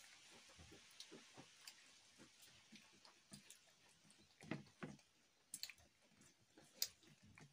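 Faint close-up eating sounds: chewing chicken, with soft wet smacks and clicks, and fingers working rice and curry on the plate. A few sharper clicks come in the second half.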